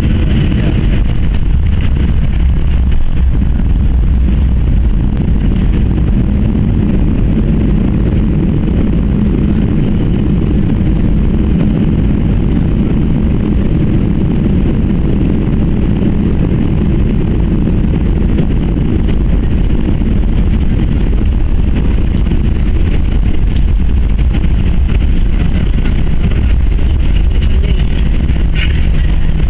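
Airliner cabin noise: a loud, steady low rumble of engines and rushing air that holds even throughout.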